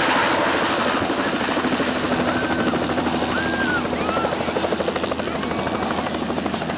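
Helicopter taking off and flying away, its main rotor beating in a rapid, even chop over the engine's steady hum, slowly growing fainter as it moves off.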